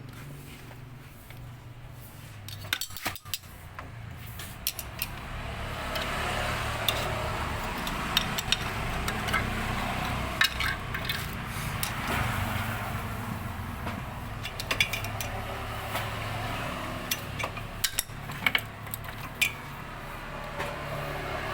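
Repeated light metallic clinks and taps over a steady low hum, with a hiss that rises about six seconds in.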